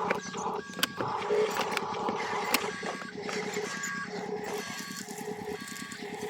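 A toy RC construction vehicle running, its small electric motor and gears making a fast buzzing rattle, with scattered clicks and repeated short electronic beeps like a reversing alarm.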